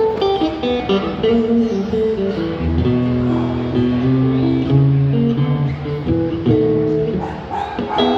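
Cigar box guitar played live: picked, sustained notes moving over a lower bass line, which comes in about three seconds in.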